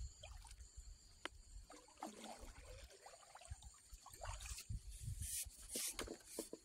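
Water trickling and lapping faintly against a bamboo raft as it glides along a calm river, with a couple of louder splashy moments in the second half.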